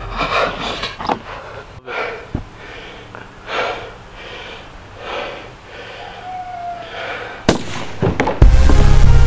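A man panting heavily in a steady rhythm, about one breath every two-thirds of a second. About seven and a half seconds in comes a sharp hit, and loud heavy rock music with distorted guitar cuts in near the end.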